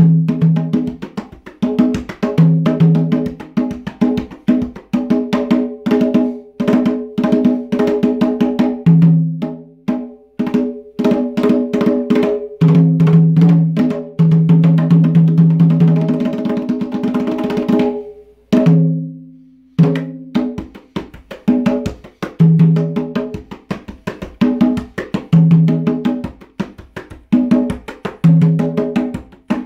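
A pair of wooden conga drums played by hand in a Latin groove: a quick, steady run of crisp strokes with deep open tones every few seconds, breaking off for a moment about two-thirds of the way through. The drums have not been tuned, and the player says they may be a little out of tune.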